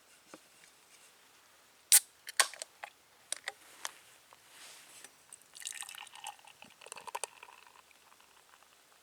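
Sharp clicks and light knocks of small hard objects being handled, the loudest about two seconds in, followed by a quick run of small clicks and rattling around six to seven seconds in.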